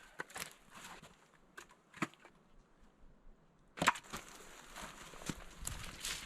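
Broken branches and pieces of wood being gathered and handled: scattered sharp wooden clacks and snaps, then a denser burst of cracking and rustling about four seconds in.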